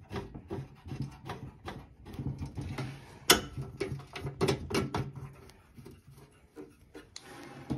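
A series of clicks and knocks as the sheet-metal door of the bandsaw's lower housing is handled and shut, with one sharp knock about three seconds in.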